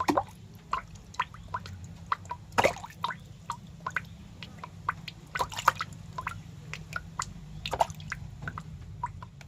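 Scattered small wet clicks and ticks, a few a second and unevenly spaced, over a steady low hum, with a few louder clicks along the way.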